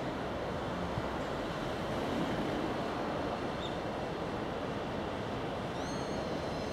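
Steady road and wind noise as a box truck drives past close by, with the fading rumble of a departing freight train under it. A short high squeal rises and holds for about a second near the end.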